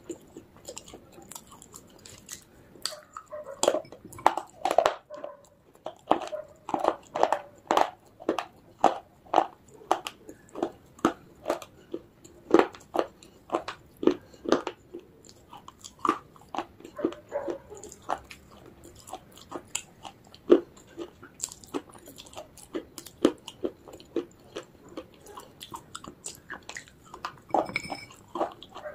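Baked edible clay (Punjab mitti) being bitten and chewed close to the microphone: a steady run of crisp, dry crunches, about one or two a second.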